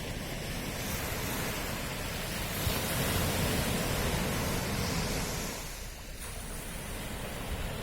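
Sea surf: a steady rush of waves that swells from about three seconds in and eases off near six seconds.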